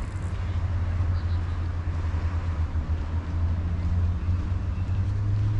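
Low, steady engine hum of a vehicle running close by, rising slightly in pitch near the end, over outdoor street noise.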